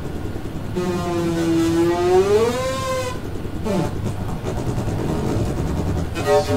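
Synthesised sound from a Max patch, its parameters driven by hand gestures through a Wekinator-trained model: a low noisy texture under a pitched tone that holds and then glides upward about two seconds in, following the hand's height. Near the end a different pitched tone with a rich stack of overtones comes in, one of the new timbres the model produces.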